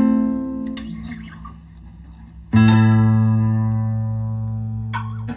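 Acoustic guitar chords strummed and left to ring out and fade. One chord comes at the start, and a fuller chord with a deeper bass note about two and a half seconds in.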